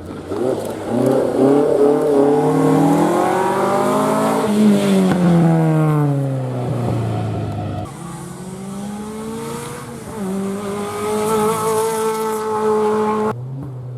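Rally car engines at high revs. One car accelerates hard and goes past with its pitch sliding down. After a sudden cut, a second car revs hard and holds high revs before cutting off abruptly near the end.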